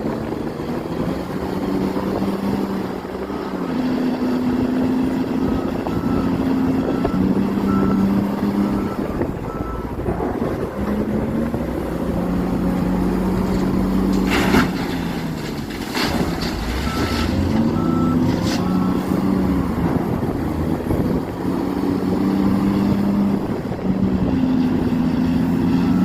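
Excavator diesel engines running under changing load, their note rising and falling as they work, with a backup alarm beeping in evenly spaced stretches. A few sharp knocks a little past halfway through.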